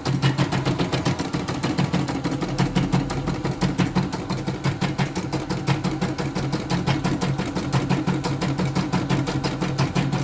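CNY E900 computerised embroidery machine running and stitching: a steady, rapid, even clatter of needle strokes over a low motor hum.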